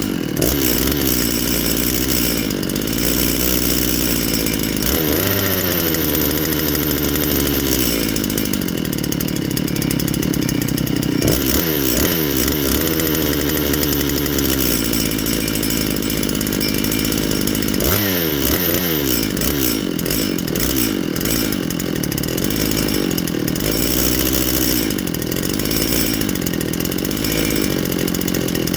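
Makita DCS7901 two-stroke chainsaw, freshly fitted with a big-bore kit and new piston ring, running and revved up several times, each time dropping back down. It is running rich and not yet warmed up.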